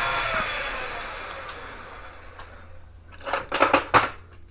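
A metal lathe switched off and coasting to a stop, its motor and spindle whine falling in pitch and fading over about three seconds. Near the end come a few short metal clatters of parts being handled.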